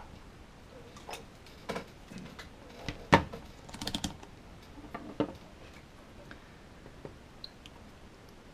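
Scattered clicks and light knocks of objects handled on a wooden table as a multimeter is picked up and its rotary selector dial turned. The loudest knock comes about three seconds in, followed by a quick run of clicks. The clicks thin out to a few faint ones in the second half.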